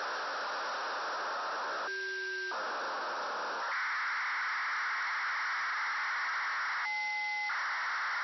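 Demodulated receiver audio from an SDR tuned to the FUNcube-1 (AO-73) satellite's telemetry downlink: a steady rushing hiss that carries the satellite's BPSK data signal. The hiss breaks twice for short steady tones, about two seconds in and near the end, and shifts slightly higher in pitch a little past three seconds in.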